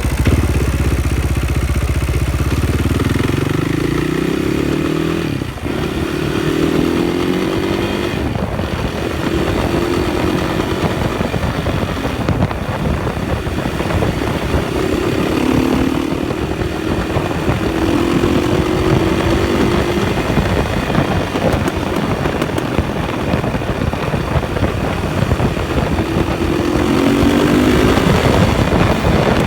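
KTM 560 SMR's single-cylinder engine being ridden hard, its revs climbing again and again, about six times, as the bike accelerates. The owner hears a juddery noise under acceleration, and the bike no longer pulls smoothly or hard.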